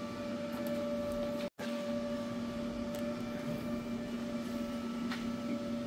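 A steady mechanical hum holding two even tones, broken by a brief gap of silence about a second and a half in, with a faint click or two.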